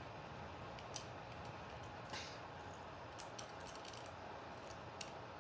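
Faint, scattered small clicks and taps, a die-cast toy car being handled.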